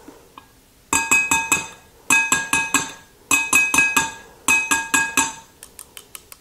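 Two metal hand-mixer beaters rapped against the rim of a mixing bowl to knock the batter off, in four quick bursts of about five knocks each, the bowl ringing after each knock. Lighter, faster taps follow near the end.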